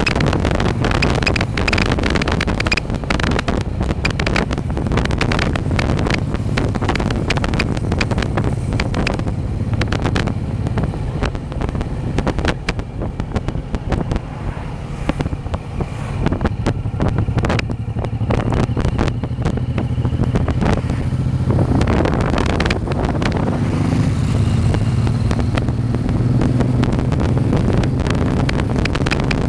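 Motorcycle engine running at road speed, heard from on the bike, with wind buffeting the microphone throughout. About three-quarters of the way through, the engine note grows fuller and steadier.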